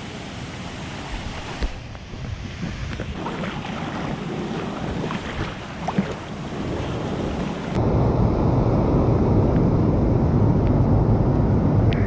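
Splashing of a swimmer stroking through a river pool over the steady rush of a waterfall. About eight seconds in, the waterfall's rush becomes suddenly much louder and fuller, as from right at the foot of the falls.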